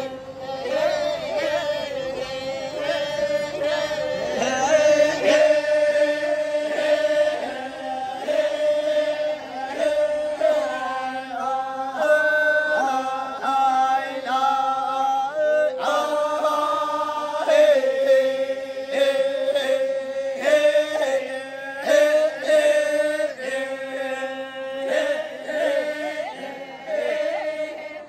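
Badong, the Toraja funeral chant: a group of voices chanting together in long, drawn-out lines over one held note, with the melody rising and falling around it.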